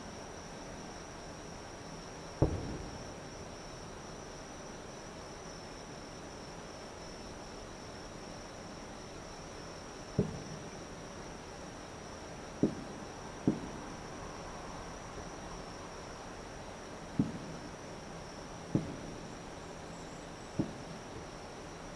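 Distant aerial firework shells bursting: seven sharp bangs spaced unevenly, the first, about two seconds in, the loudest. Underneath, insects keep up a steady high chirring.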